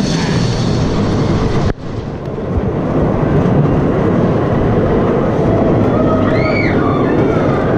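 Wooden roller coaster train rumbling along its track through a dark tunnel, a steady loud rolling rumble with a brief dip about two seconds in. A short high squeal rises and falls near the end.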